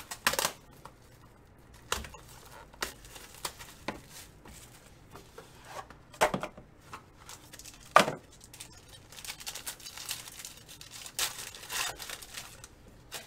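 A trading-card box of cardboard and foil being torn open by hand: a series of sharp rips, the loudest about six and eight seconds in, then a run of crinkling of packaging near the end.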